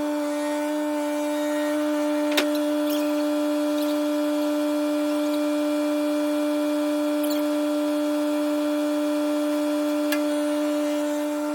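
Small Kubota tractor running with a steady, high-pitched mechanical whine, with a sharp click about two seconds in and another near the end.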